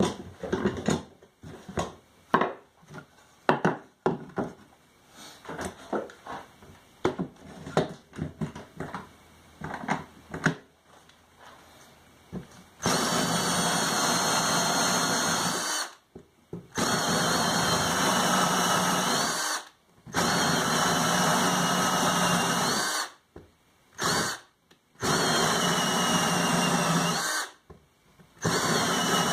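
Irregular knocks and clicks of handling, then a hand-held electric drill running in five bursts of two to three seconds each with short pauses, from about halfway on. It is boring into hardwood to cut wood plugs.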